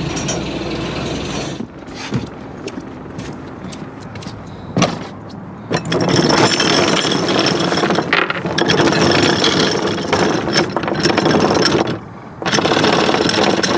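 Anchor chain paying out through the windlass and over the bow roller: scattered metallic clanks at first, then a dense, continuous rattle from about six seconds in that stops briefly near the end and starts again.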